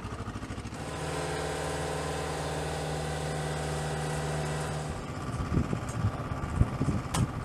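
An engine running with a steady hum that starts about a second in and stops about five seconds in, followed by irregular knocks and clatter with a sharp click near the end.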